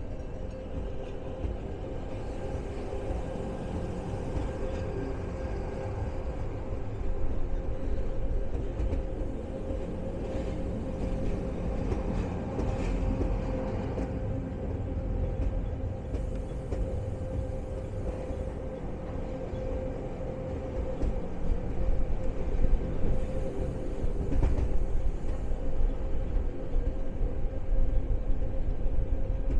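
Appenzeller Bahnen rack train running downhill on its Riggenbach rack line, heard from an open window: wheel rumble with a steady whine, louder in the last third. Wind blows on the microphone.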